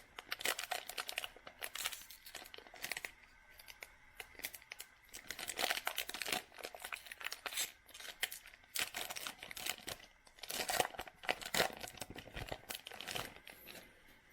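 Trading card pack wrapper crinkling and tearing as it is ripped open by hand, with dense, irregular crackles throughout and louder clusters near the middle and later on.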